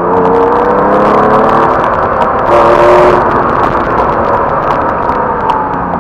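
Porsche 911's flat-six engine heard from inside the car during a hard run. The pitch rises over the first second or so, a brief hiss comes about halfway through, and the pitch falls near the end as the car eases off.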